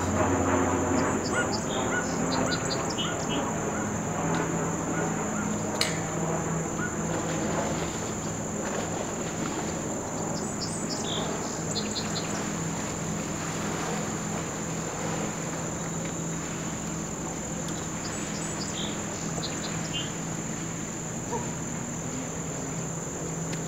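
Steady high-pitched insect chorus, with a few clusters of short, high chirps and a low steady hum underneath.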